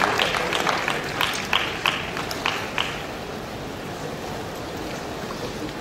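Audience applause dying away: dense clapping thins to a few scattered claps and stops about three seconds in, leaving a steady background hiss.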